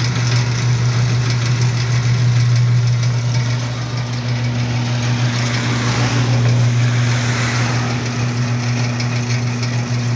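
Chain-drive mortar mixer running with its drum turning: a steady low hum from the drive, with a rough rattle over it that grows brighter about five seconds in.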